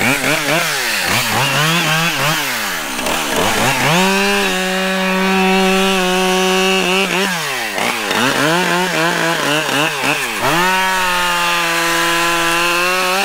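Husqvarna 572 XP two-stroke chainsaw blipped up and down in quick revs, then held at full throttle with a steady high pitch as it cuts through a fallen tree trunk. This happens twice: a steady cut about four seconds in, then more revving, then a second steady cut near the end.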